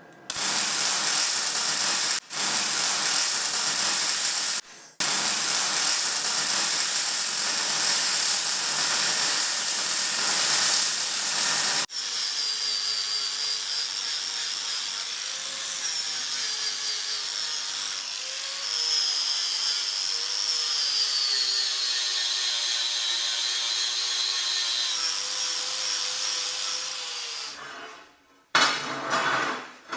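Power tool working metal: a loud, hissing cut for about twelve seconds, with two brief pauses, then a quieter running motor whose pitch wavers as the load changes, stopping near the end.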